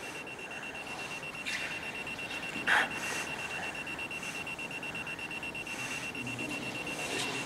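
A high-pitched electronic beep pulsing rapidly and evenly, several times a second, like an alarm clock, with a short sharp noise about a third of the way in.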